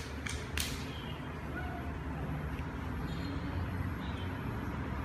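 Steady low outdoor rumble, with a couple of sharp clicks in the first second and a few faint short sounds over it.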